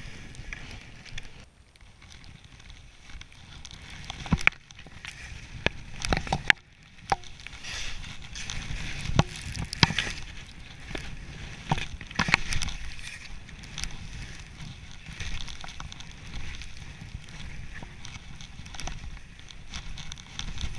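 Skis running through powder snow, with wind buffeting the microphone and a rising and falling hiss and rumble. Several sharp knocks cut through, loudest about 4 to 12 seconds in.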